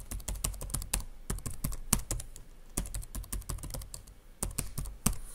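Typing on a computer keyboard: a steady run of quick, uneven key clicks as a password is entered.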